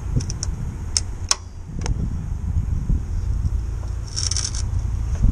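Locking pliers clamped on a stripped screw head, twisting it out of an aluminium mast: a few small metal clicks in the first couple of seconds and a short rattly metal scrape about four seconds in, over a steady low rumble.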